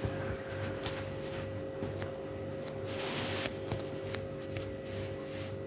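Room tone with a steady hum and a faint pulsing low drone, a few small clicks, and a brief hiss about three seconds in.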